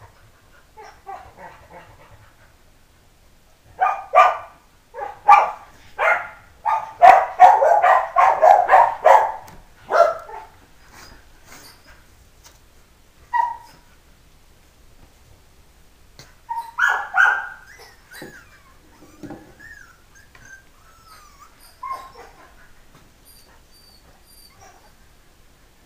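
Three-week-old Pumi puppies yipping and barking in play, a quick run of short high yips about four seconds in, then a few more later with thin wavering whines.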